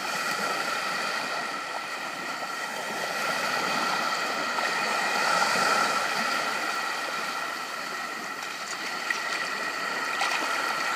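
Small waves washing onto a sandy shore, the surf noise swelling and easing, with a steady high hum underneath.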